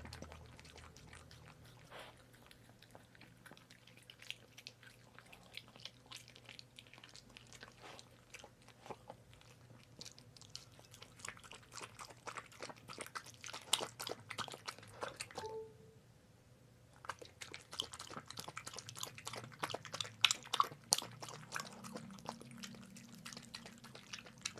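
A puppy eating chicken pasta: rapid chewing with many quick, sharp bites. It stops for about a second and a half about two-thirds of the way through, then carries on.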